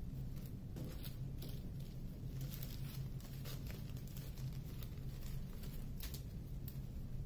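Small plastic zip-lock bags of diamond-painting drills rustling and crinkling in the hands in short, irregular bursts, over a steady low hum.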